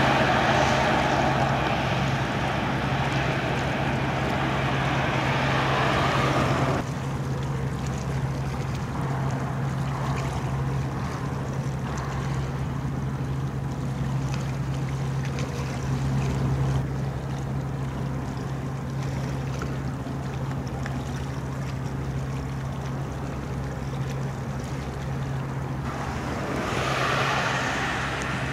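Steady low drone of a passing Ro-Ro passenger ferry under way, with a rush of wind and water that drops away abruptly about seven seconds in and swells again briefly near the end.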